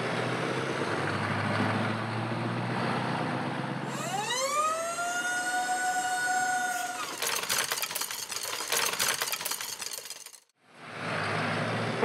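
A truck's diesel engine running, then a pitched whine that rises and levels off for about three seconds while the tipper body is raised. After that comes a dense rattling clatter of toy building bricks tumbling out of the tipper for about three seconds. A brief silence follows, then the engine again near the end.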